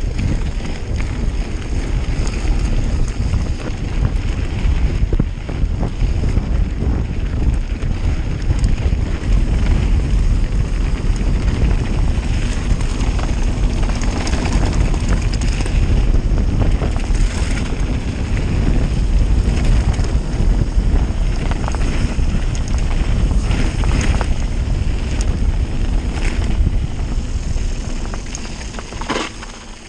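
Wind buffeting the microphone of a handlebar-mounted camera as a mountain bike descends fast on a gravel fire road, tyres rumbling over loose stones with scattered sharp clicks. The noise drops away near the end as the bike slows.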